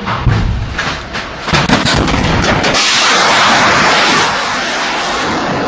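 Missile launching from an underground silo: a sudden loud blast, crackling, then the rushing roar of the rocket exhaust, which holds steady from about halfway through.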